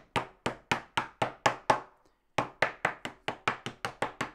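Rapid light taps of a small hand tool seating 18650 lithium-ion cells into a plastic cell holder, about four or five knocks a second, with a brief pause about two seconds in before the tapping resumes.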